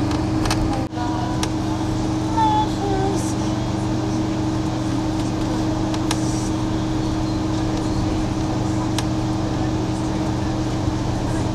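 Steady running noise inside a moving passenger train carriage: a constant rumble with a low hum of several steady tones, broken by a few sharp clicks and a brief dropout about a second in.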